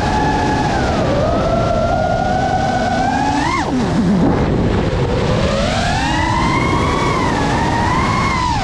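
FPV racing-quadcopter motors whining, their pitch rising and falling with the throttle over a steady rush of prop and wind noise. About three and a half seconds in the whine climbs sharply then drops away as the throttle is cut through a roll, then swells up and eases off again.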